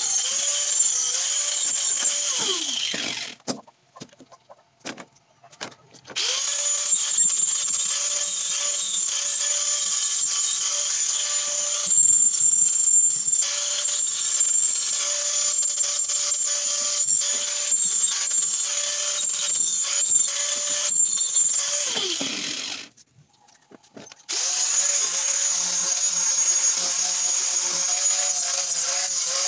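Electric angle grinder running against plywood with a steady whine. It is switched off and winds down in pitch about three seconds in, restarts a few seconds later, winds down again a little after twenty seconds, and starts up once more soon after.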